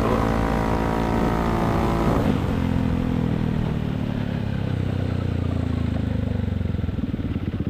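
Yamaha XMAX 250's single-cylinder engine through a Vilan MV1 stainless slip-on exhaust with the dB killer removed, held at a steady speed. About two seconds in the throttle closes and the revs fall away as the scooter slows, ending in a low, bassy putt near idle.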